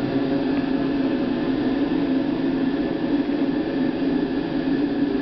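Steady running noise of a Lastochka (Siemens Desiro) electric train in motion, heard inside its toilet compartment: an even hum with a few held tones over a hiss.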